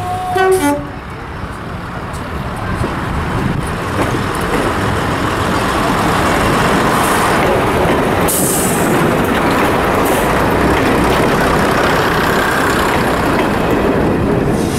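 Steam train making a steady, loud rushing noise that builds over the first few seconds and then holds.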